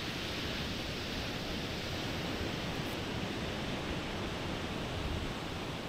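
Steady rushing noise of wind and surf on an open beach, even throughout with no distinct events.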